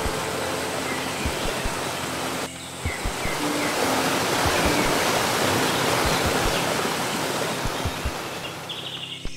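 Rushing water of a stream and small waterfall, coming in about two and a half seconds in, strongest in the middle and fading near the end, heard over background music.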